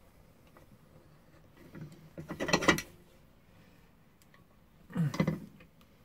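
Telescoping metal selfie-stick tube being slid out and pushed back in by hand: two brief bursts of metallic sliding and rattling, about two seconds in and about five seconds in.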